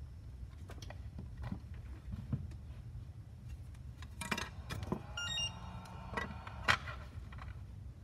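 Handling clicks and knocks as a ToolKitRC M4Q charger has its power cable plugged in and is set down on the mat. About five seconds in, the charger powers on with a quick run of short electronic startup beeps and a faint rising hum, followed by a sharp knock.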